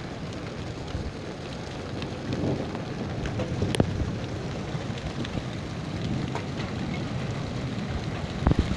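Hail falling onto concrete and into a shallow channel of runoff water: a steady hiss of hail and rain dotted with sharp ticks of single stones striking, with a few louder hits near the end.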